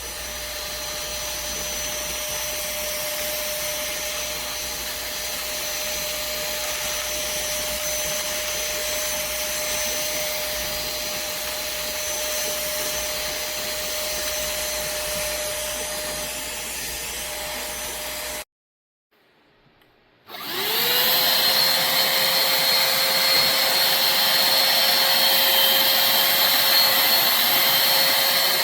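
Cordless handheld vacuum cleaner's motor running steadily, a high whine over airflow hiss. About 18 seconds in it cuts off abruptly; after a pause of nearly two seconds it spins up again with a rising whine and runs on louder and hissier.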